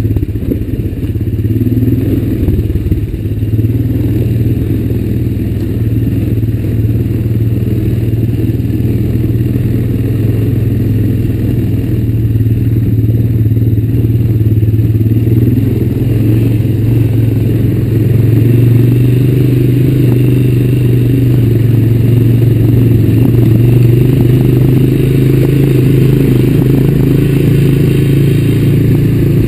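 A 2004 Honda Recon ATV's single-cylinder four-stroke engine runs under throttle as the quad is ridden along a rough dirt trail. The engine note holds steady and gets a little higher and louder in the second half.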